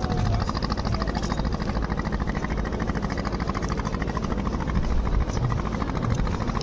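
Boat engine running steadily, with a fast, even pulse.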